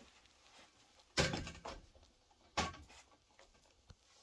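Two hollow clunks about a second and a half apart, then a faint click near the end: a thin ceiling tile and the telescoping support poles propping it up being knocked and shifted into place against the ceiling.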